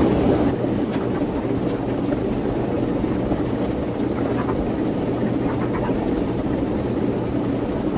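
Steady hum and hiss of fish-room equipment, with a few faint splashes as a hand and net work in an aquarium tank.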